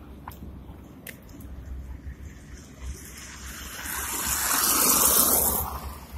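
A car passing close by on the road: its tyre and road noise swells over about two seconds to a peak about five seconds in, then quickly fades, over a low, steady rumble of city traffic.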